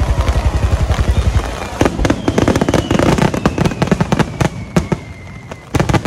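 Aerial fireworks in a rapid barrage: a fast run of deep booms, about ten a second. From about two seconds in there are many sharp crackling bangs, with a long whistle falling slowly in pitch, and a last cluster of cracks near the end.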